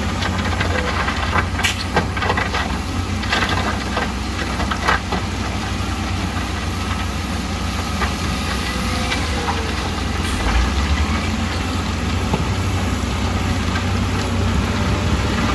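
Diesel engine of heavy construction machinery running steadily, with sharp metal clanks and knocks over the first few seconds.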